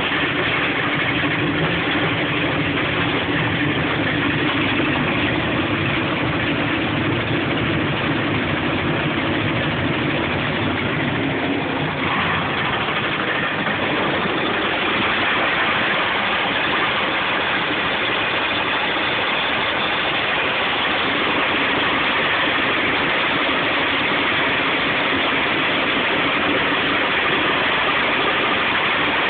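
Old straw chaff cutter converted into a branch chipper, running steadily with a loud, dense machine noise. The sound shifts slightly about twelve seconds in.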